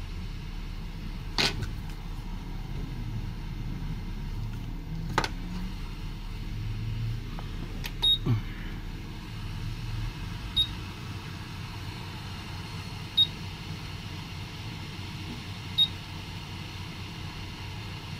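Steady hum of repair-bench equipment with a few sharp clicks of tools on the board, and short high electronic beeps that repeat about every two and a half seconds in the second half.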